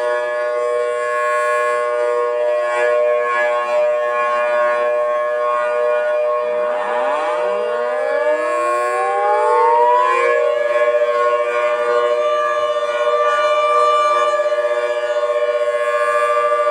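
Thunderbolt civil defense siren sounding a steady, loud chord of two main tones. About seven seconds in, further tones wind up from a low pitch and rise over a few seconds to join the held chord.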